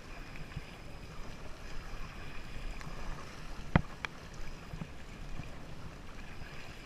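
Kayak paddling on a slow river: steady water noise from the paddle strokes, with low wind rumble on the microphone. Two sharp knocks come close together a little past the middle, the first one the loudest sound.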